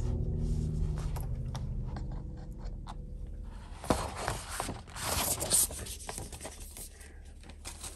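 Paper poster rustling and scraping as it is handled and folded, in scattered brushes that bunch into a busier run of rustling about halfway through.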